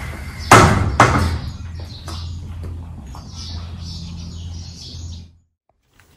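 Glass door with a metal security grille pulled shut, two loud knocks half a second apart as it slams and latches. Birds chirping follow over a low steady hum, which cuts off suddenly near the end.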